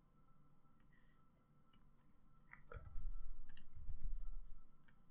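Scattered single clicks of a computer mouse and keyboard as a form element is copied and pasted. In the middle, a low rumble swells up twice, about a second apart, louder than the clicks.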